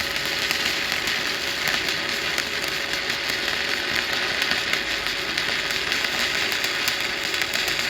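Stick welding arc (shielded metal arc welding with a covered electrode) burning on a square butt joint in thin steel sheet: a steady crackling sizzle made of dense, fine pops.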